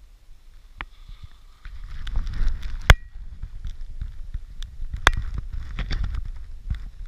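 Wind buffeting the microphone, a low gusty rumble that swells about two seconds in. Sharp clicks cut through it, the loudest about three seconds in and another about five seconds in.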